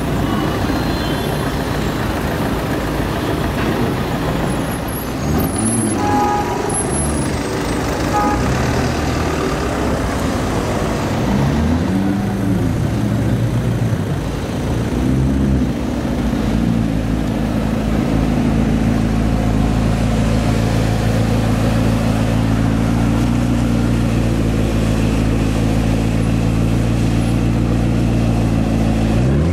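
McLaren P1's twin-turbo V8 idling with a steady low rumble, with a few short throttle blips that rise and fall in the first half and a quick rev rising right at the end.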